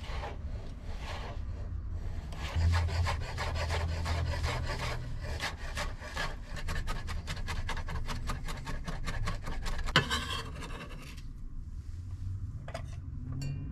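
Knife chopping pickles on a cutting board in quick, even strokes, about five cuts a second, over a steady low hum. The chopping ends with a sharper knock about ten seconds in.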